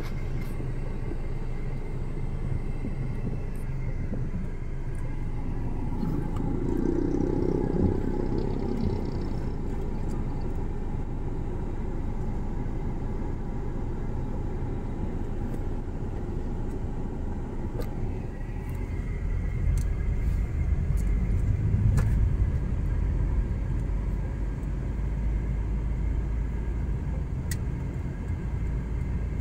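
Car driving along an expressway: a steady low rumble of tyres and engine, getting deeper and louder about twenty seconds in.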